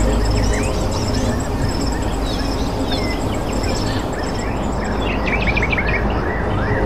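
Small birds chirping outdoors, short rising and falling calls with a fast, high repeated trill, over a steady low background rumble.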